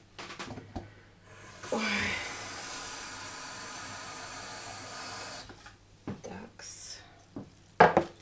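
Kitchen tap running for about four seconds, water pouring into a bowl of rice to rinse it, starting with a louder gush. A few light knocks and clinks come before and after.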